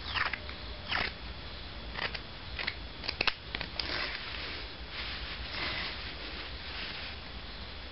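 Scissors snipping through a knit sock, a series of short, sharp cuts, several close together about three seconds in.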